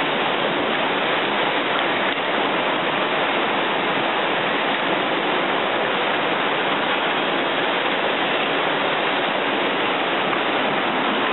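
Tsunami floodwater rushing past, a loud, steady wash of water noise that does not change.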